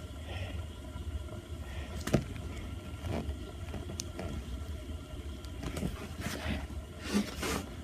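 Fidget spinner spinning on a table with a faint steady whir, with a few small clicks and a soft rustle near the end.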